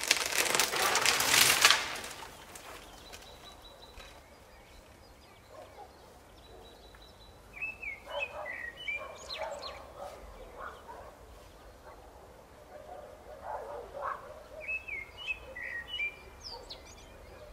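A tree crashing down, its branches cracking and swishing through each other, dying away about two seconds in. Later, short chirping bird calls come in two spells.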